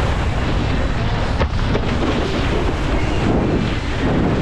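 Wind rumbling and buffeting on a head-mounted GoPro's microphone as the wakeboarder is towed at speed over the water, with one sharp knock about one and a half seconds in.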